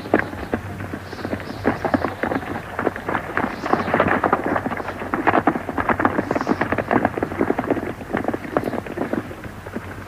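Hoofbeats of several horses galloping, a dense run of overlapping thuds.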